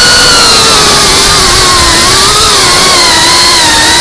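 Loud whine of the GEPRC Cinelog 35 cinewhoop's brushless motors and ducted propellers, picked up by the camera riding on the drone. The pitch sags and rises with the throttle, dipping about halfway through and again near the end, over a rush of prop wash and wind noise.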